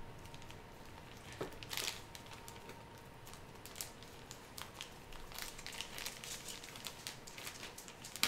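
Thin plastic wrapping crinkling and rustling in short, faint crackles as hands peel it off a foam RC airplane tail piece.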